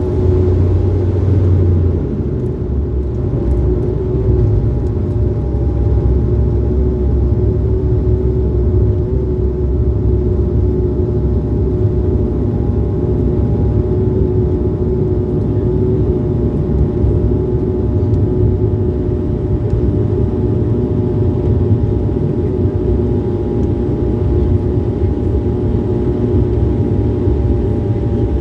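Steady engine drone and low rumble of an airliner heard from inside the passenger cabin, with a constant hum over it.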